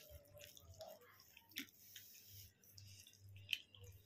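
Faint chewing and wet mouth sounds of a person eating food by hand, with a couple of sharp clicks, the louder one near the end.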